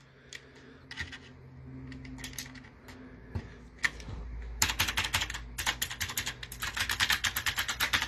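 Typing on a typewriter-style mechanical keyboard with clicky blue switches: a few scattered keystrokes, then a fast run of clicky typing from about halfway through.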